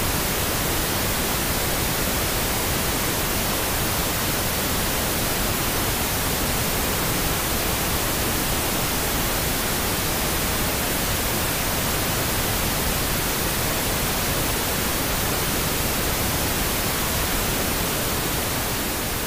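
Steady pink noise, the added noise bed of a subliminal audio track, as an even hiss that starts to fade out near the end.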